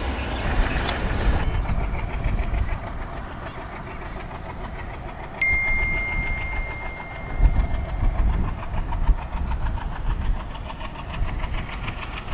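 Diesel locomotive hauling a freight train, its engine chugging with a steady rhythmic beat. A single high, steady horn note starts abruptly about five seconds in and holds for two or three seconds. In the first second or so, the clatter of a passing passenger train fades out.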